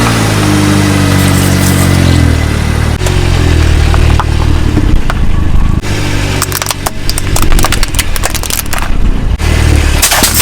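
Car engine running steadily, its pitch stepping at several edits, with scattered sharp cracks and crunches of objects being crushed under the tyres, thickest in the second half.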